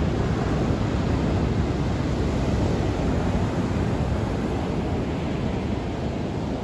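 Ocean surf breaking and washing up a sandy beach: a loud, steady rush of noise that eases slightly toward the end.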